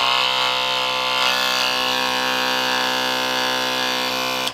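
Electric hobby paint shaker buzzing steadily as it mixes a pot of paint, then cutting off suddenly near the end.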